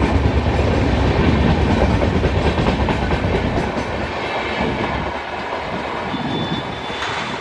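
Passenger coaches of an express train passing at speed, the wheels clattering over the rail joints with a heavy rushing rumble. About four seconds in the deep rumble thins and the sound begins to fade as the last coach goes by and the train draws away.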